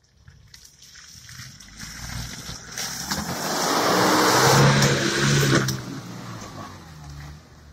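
Suzuki Vitara off-roader driving through mud ruts and puddles. Its engine is running under load and its tyres churn and spray mud and water as it comes up and passes close by. The sound is loudest about four to five seconds in, then fades.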